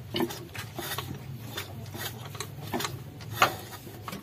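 Irregular metallic clicks and clunks from a Daihatsu Taft diesel engine being turned and rocked by hand, checking for loose connecting-rod bearings; one sharper knock about three and a half seconds in, over a steady low hum.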